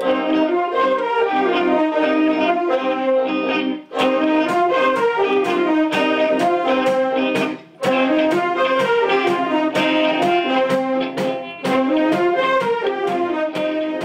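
School big band playing an up-tempo piece, saxophones and brass in ensemble over drum hits, with short breaks between phrases about four, eight and twelve seconds in.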